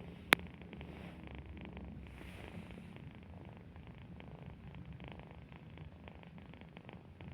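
A sleeping pet snoring: a steady low rumble, with one sharp click about a third of a second in.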